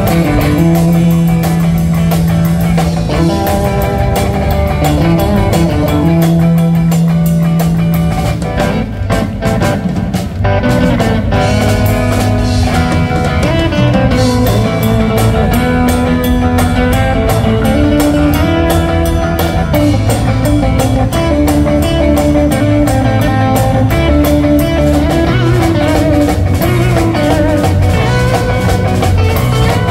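A rock band playing live: electric guitars over a bass guitar and a drum kit, amplified through stage speakers. The music drops back briefly about nine seconds in, then carries on.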